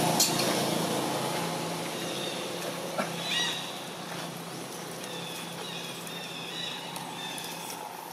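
A run of short, high-pitched animal chirps, repeating from about three seconds in, over a low steady hum that fades during the first few seconds. A couple of sharp clicks, one near the start and one about three seconds in.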